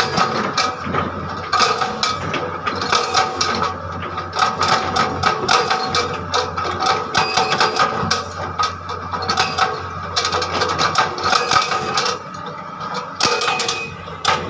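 Excavator-mounted hydraulic rock breaker hammering on rock in rapid, irregular metallic blows, over the steady hum of the excavator's engine.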